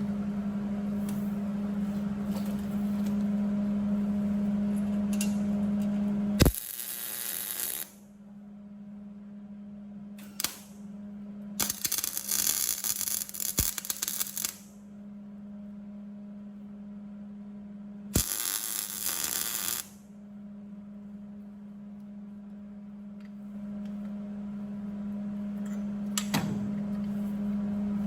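Welder tacking a steel cowl patch panel in place: several bursts of arc crackle, one to three seconds each, over a steady electrical hum.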